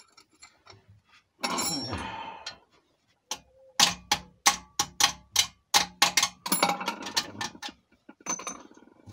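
Ratchet wrench clicking in short even strokes, about three clicks a second, as an exhaust-line bolt is undone. A brief metallic rattle comes a couple of seconds before the clicking.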